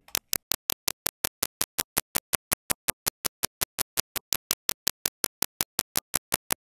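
Rapid, evenly spaced digital clicks, about seven a second, from the computer's audio output while Ableton Live renders a consolidate-to-new-scene operation.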